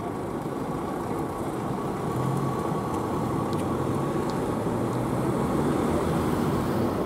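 Engine of a fire service Mercedes-Benz Vito van as it pulls away and drives off, running steadily and getting a little louder about two seconds in.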